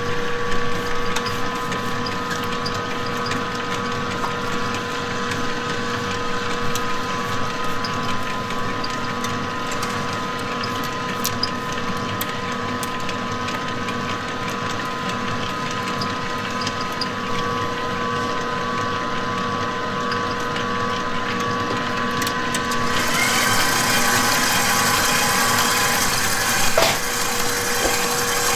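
Electric stand mixer running with a steady motor whine, its wire whisk beating chocolate batter in a stainless steel bowl; the sound turns brighter and a little louder about 23 seconds in.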